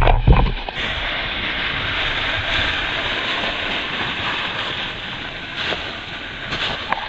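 A few loud knocks in the first second, then a steady hiss as the electric WLtoys K949 RC buggy drives off over dry leaf litter, its motor and tyres on the leaves, easing a little near the end.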